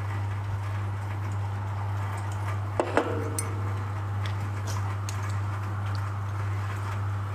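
Ceramic mug knocking twice on a hard surface a little under three seconds in, with a few faint clicks after, over a steady low hum and hiss.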